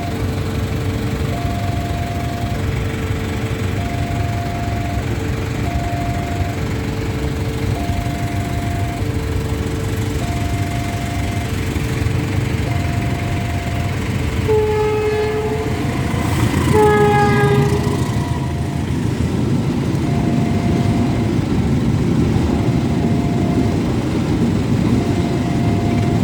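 Railway level-crossing warning siren alternating steadily between two tones, each held about a second. A little past halfway a train horn sounds twice, and the rumble of the passing train grows louder.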